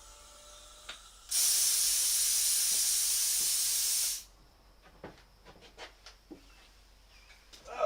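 Compressed air hissing out in one loud burst of about three seconds that stops abruptly, followed by a few light clicks.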